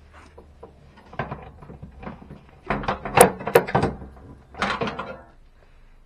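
Plastic parts knocking and scraping inside a washing machine cabinet as the drain pressure chamber is shoved and worked free of the drum, with a cluster of sharp clacks in the middle.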